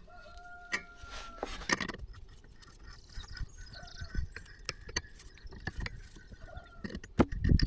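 Scattered light metallic clicks and scraping from hand-tool work on a bolt's damaged threads as they are cleaned up.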